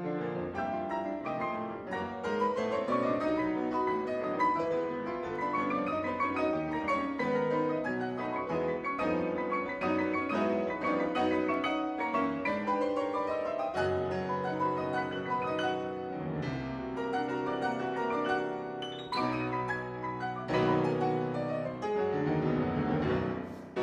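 Ragtime piano music played by an ensemble of four pianists: quick, dense runs of notes, then a string of heavy full chords in the closing bars, ending on a loud final chord.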